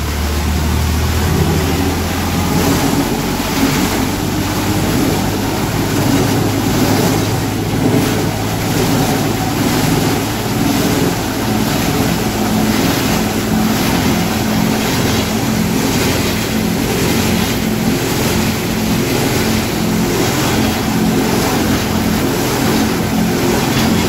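Tractor-driven wood crusher (sawdust-making machine) running under load, its rotor grinding hand-fed waste wood into sawdust over the steady drone of the tractor engine. The din is loud and continuous, with irregular crunches as pieces of wood go in.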